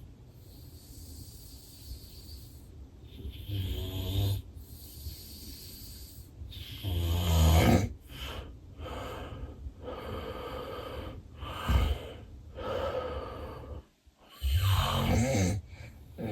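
A sleeping man with severe sleep apnea snoring heavily and unevenly. Loud snores come about four, seven and fifteen seconds in, the one at seven seconds the loudest, with noisy breathing and a short sharp breath between them.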